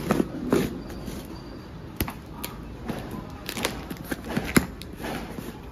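Cardboard shipping box being handled and its plastic packing tape cut open with scissors: scattered crackles and rustling broken by sharp irregular clicks and snaps.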